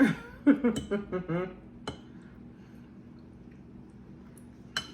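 A woman's voice briefly at the start, then two light tableware clinks, about three seconds apart, over a quiet room.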